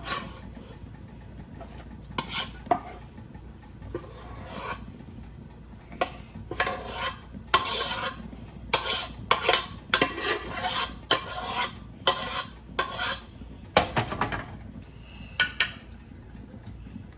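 A spoon scraping and clinking against cookware in short, irregular strokes as macaroni and cheese is spooned out and spread in layers.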